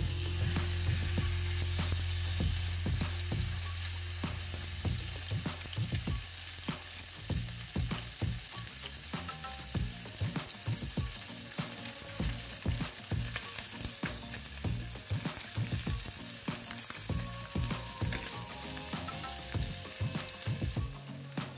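Salmon steaks frying in hot oil in a frying pan: a dense sizzling hiss with many small crackling pops. A low steady hum sits under the first seven seconds or so.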